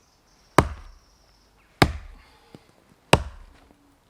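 Hultafors hunter's axe chopping into a tree trunk to fell it: three sharp blows spaced about a second and a quarter apart, each ending in a short decaying ring.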